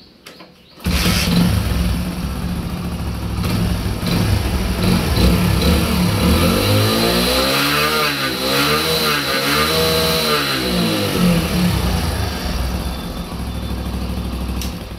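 Hero Splendor Pro motorcycle's single-cylinder four-stroke engine starting about a second in and running, revved up and down several times around the middle. The engine has just had a new barrel kit and valve seals fitted.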